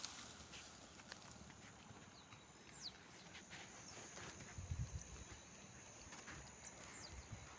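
Near silence: faint scattered ticks and clicks, a faint steady high tone, and a few soft low thumps about five seconds in.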